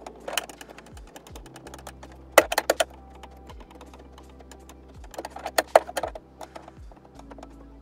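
Clusters of quick, sharp taps and clicks from paintless dent repair tools working a dent in a car door panel, over background music with a low beat.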